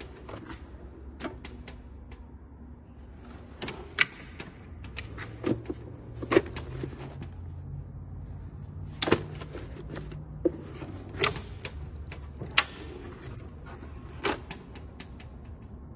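Drawers of a steel US General roll-cart tool cart sliding open and shut, with hand tools clacking and rattling inside: a string of sharp clicks and clatters, a few louder knocks among them.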